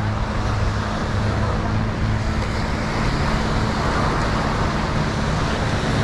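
Steady road traffic noise from passing cars, with a continuous low rumble and a faint steady hum.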